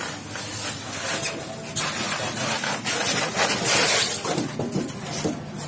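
Polystyrene foam packing tray scraping and rubbing against the walls of a cardboard box as it is lifted out, with rustling and small knocks, loudest in the middle stretch.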